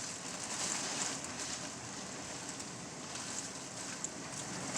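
Hurricane rain and wind: a steady hiss that swells about a second in and then eases.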